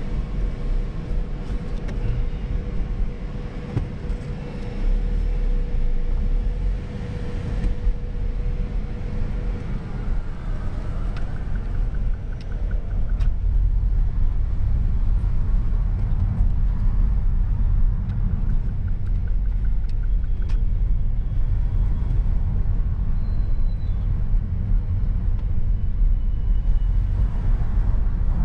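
A 2010 Mazda 6's 2.5-litre four-cylinder petrol engine running and road rumble heard from inside the cabin as the car drives slowly. The low rumble grows louder about twelve seconds in.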